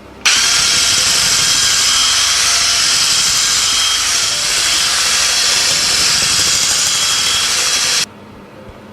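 Electric mixer running at one steady speed, switched on just after the start and cut off abruptly about a second before the end, beating eggs and sugar.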